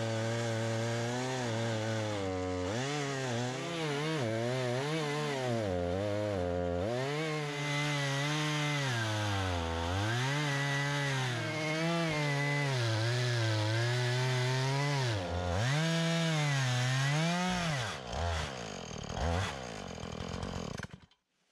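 Two-stroke chainsaw mounted in a mini chainsaw mill, ripping a spruce log lengthwise into boards, its engine speed rising and falling as it works under load. Near the end the engine note breaks off and dies away.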